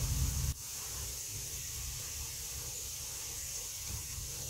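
Steady background hiss with no distinct events; a low rumble cuts off abruptly about half a second in.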